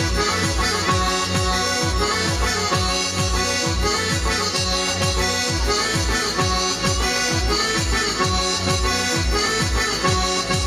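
Loud folk dance music with a steady, fast beat under a sustained reedy melody line.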